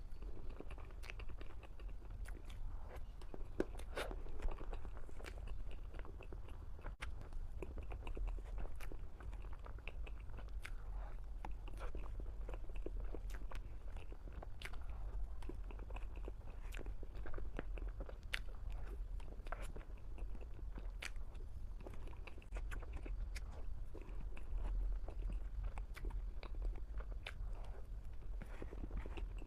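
Close-miked eating of a chocolate mousse cake off a spoon: soft chewing and wet mouth sounds with frequent small, irregular clicks and crunches. A steady low hum runs underneath.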